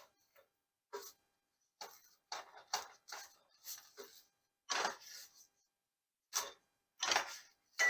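Short, irregular bursts of scraping and sizzling noise from a lavash sandwich being cooked in a hot skillet, roughly a dozen in all with silence between them.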